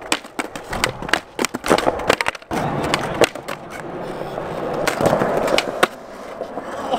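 Skateboard on concrete: a rapid run of clacks and scrapes as the board grinds a ledge's metal edge, then the wheels rolling steadily over smooth concrete from about two and a half seconds in, with a few more sharp clacks.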